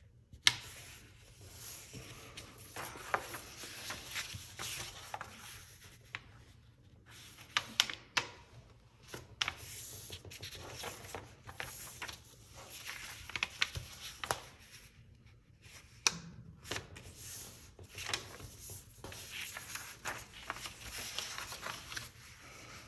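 A sheet of paper being handled, folded and pressed flat by hand on a tabletop: irregular rustling and sliding, broken by several sharp clicks and snaps.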